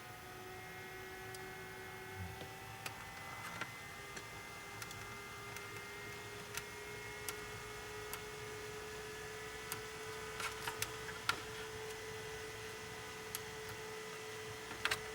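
A powered-up DLP projector giving a faint steady whirring hum that rises slowly in pitch, with scattered light clicks and ticks.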